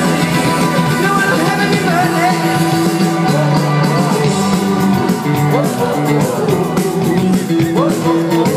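Indie rock band playing live through a festival PA, heard from within the crowd: electric guitars and drums over a bass line that steps between long held notes.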